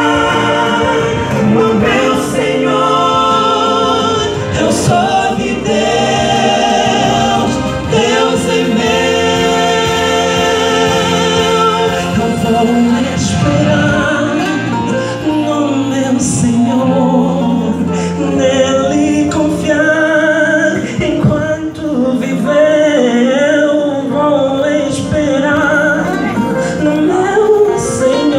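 Men's choir singing a gospel song, several voice parts sounding together in harmony.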